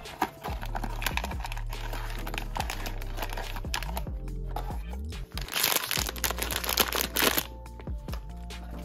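Crinkling of a sealed plastic blind-box bag and its cardboard box being handled, loudest as the bag is pulled out and turned in the hand about two-thirds of the way through, over steady background music.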